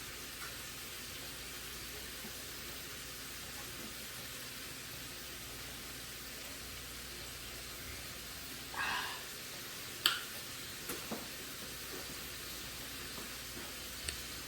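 Sirloin steak sizzling in a hot pan, a steady hiss, with a few short clicks and a brief scrape from kitchenware partway through.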